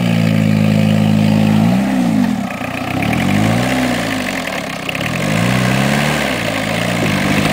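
Peugeot 306 1.9 turbo diesel engine revving: held at steady revs for a couple of seconds, then revved up and let fall about four times, as the driver tries to get the car moving on soaked ground.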